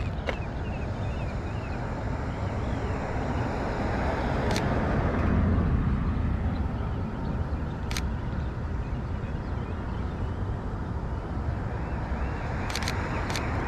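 Street traffic noise with a steady low rumble, swelling as a car passes about five seconds in. A few single sharp clicks stand out, with a quick cluster near the end.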